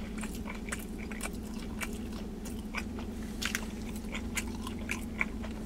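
Close-up mouth sounds of a man chewing a mouthful of sub sandwich: irregular wet clicks and smacks over a steady low hum.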